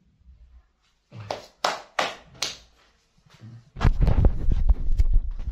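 Four sharp hand slaps, about half a second apart. Then loud rumbling and knocking close to the microphone as the phone that is recording is picked up and handled.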